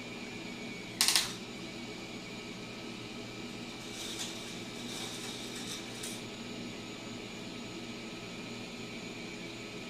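K'NEX toy roller coaster's motor running steadily, driving the lift chain with a thin whine. A short, loud plastic clatter comes about a second in, and lighter rattling follows between about four and six seconds in.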